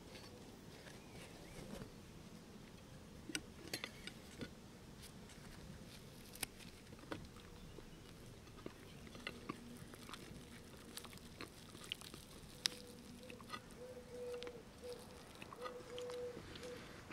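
Quiet close-up eating sounds: scattered small clicks and taps of food being handled, with a bite into crusty bread near the end. From about halfway a faint humming tone comes and goes.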